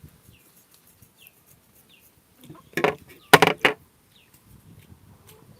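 Birds chirping faintly in short falling peeps, repeated every half second or so, with two loud brief sounds about three seconds in.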